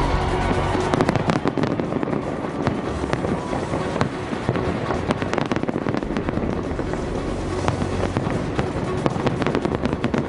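Fireworks display: a dense run of sharp bangs and crackling bursts packed close together, with music underneath.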